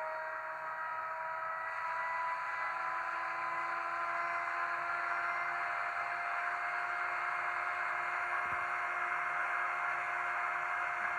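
LeoSoundLab diesel-locomotive sound from an ESU LokSound V5 decoder in an H0 model of the ÖBB 2143, played through the model's small speaker: a steady whirring hiss with a few tones slowly rising in pitch.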